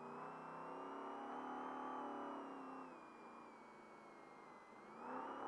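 Trophy Truck engine heard from inside the cab at racing speed: its revs climb, ease off about three seconds in as the truck slows, then climb again near the end as it accelerates.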